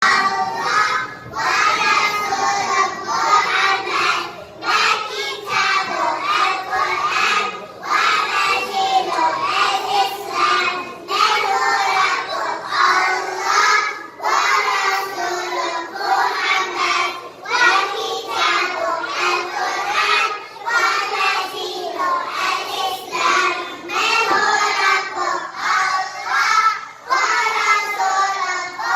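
A child's voice singing a song.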